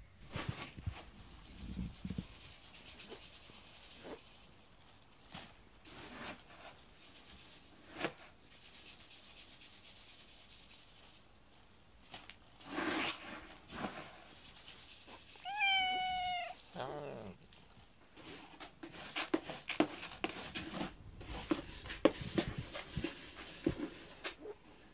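A cat meows once about two-thirds of the way through, a single drawn-out call that drops slightly at the end, amid soft rubbing and rustling of a hand scratching its chin and fur, with scattered small clicks.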